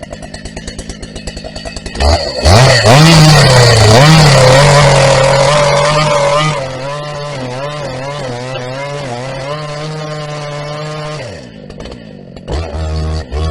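Husqvarna 380 CD two-stroke chainsaw, rebuilt vintage saw, idling, then revved to full throttle about two seconds in. It runs hard and loud for several seconds, holds a high steady speed, then drops back to idle near the end with a couple of short throttle blips.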